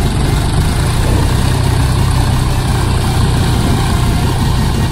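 Diesel engines of two John Deere 5000-series tractors (a 5210 and a 5039) running steadily under heavy load as they pull against each other in a tug-of-war.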